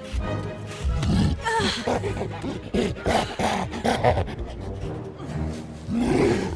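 King Kong's film creature voice, the giant gorilla giving a series of deep grunts and roars, with the loudest about four seconds in and again near the end.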